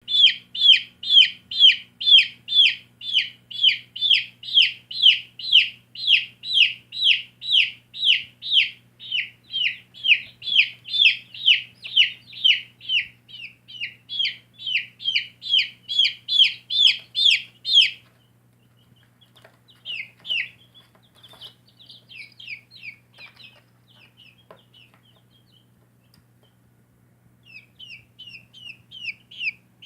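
Baby chicks peeping: a loud, steady run of short falling peeps, about two a second, that breaks off about 18 seconds in. Softer, scattered peeps follow, then a quicker run starts again near the end.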